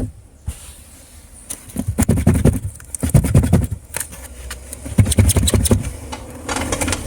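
Handling in a car's trunk: a quiet start, then from about a second and a half in, bouts of scraping and rustling with clicks and dull knocks as the trunk floor cover and spare-tyre compartment are worked at.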